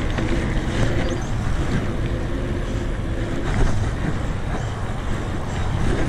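Wind buffeting an action camera's microphone as a mountain bike is ridden, with tyre and trail noise underneath and occasional clicks and rattles.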